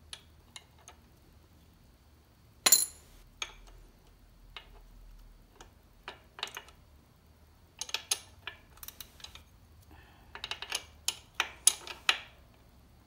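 Steel wrench clinking and clicking against a dirt bike's chain adjuster bolt and locknut as it is turned and refitted, with a loud clank about two and a half seconds in and quick runs of sharp clinks in the second half.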